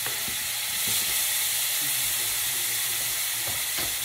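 Sliced apples and pears frying in hot butter in a stainless steel pan: a steady sizzle, with a few faint clicks.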